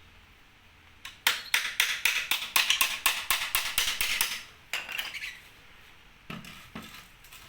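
A quick run of sharp, light taps, about six a second for some three seconds, then a few fainter ones and two duller knocks near the end.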